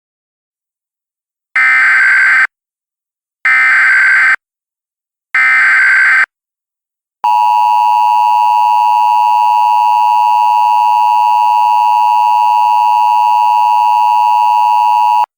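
Emergency Alert System broadcast tones: three short bursts of SAME header data screech, about two seconds apart, then the two-tone EAS attention signal held steady for about eight seconds before cutting off abruptly.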